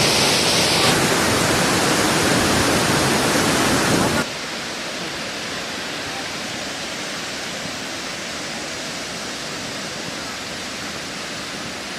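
Steady rush of a large waterfall, loud at first, then dropping suddenly to a quieter, duller rush about four seconds in.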